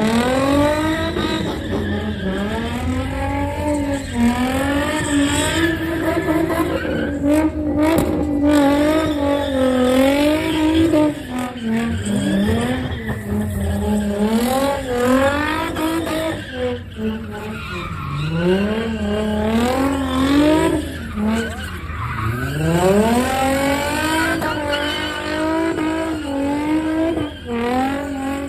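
Sedan's engine revving up and down over and over while its rear tyres spin and squeal on the pavement in donuts. The revs fall away twice and climb quickly again, once about two-thirds of the way through.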